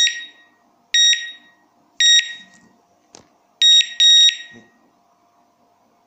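Digoo 433MHz wireless alarm siren giving short, high electronic beeps as its set button is held to put it into pairing mode: three beeps about a second apart, then two quick beeps close together.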